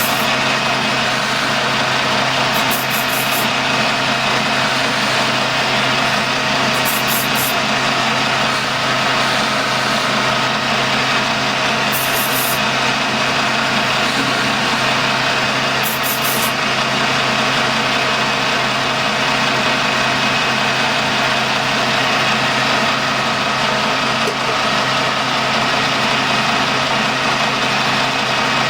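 Colchester lathe running steadily, its motor and gearbox giving a constant hum and whine. Short high-pitched hisses come every few seconds.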